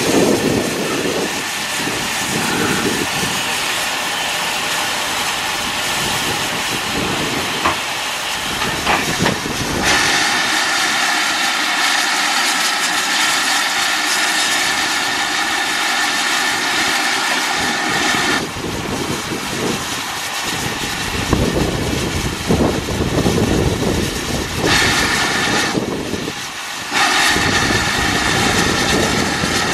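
Steam locomotive No. 9351 standing with its train, steam hissing steadily from the engine. The hiss grows brighter and stronger about ten seconds in, eases again a little past halfway, and changes once more near the end.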